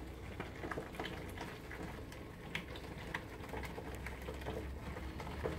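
Wet, dye-soaked yarn in a heated dye pan simmering: faint, irregular small pops and crackles over a steady low hum.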